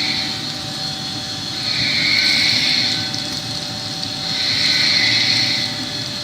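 A machine running steadily, with a hiss that swells and fades about every two and a half seconds over a few steady hums.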